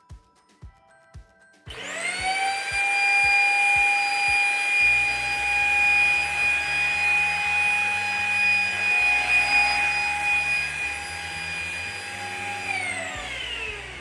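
Deerma CM800 handheld mite vacuum cleaner switched on about two seconds in: its motor spins up at once to a steady high whine, an ordinary vacuum noise. Near the end it is switched off and winds down, the whine falling in pitch.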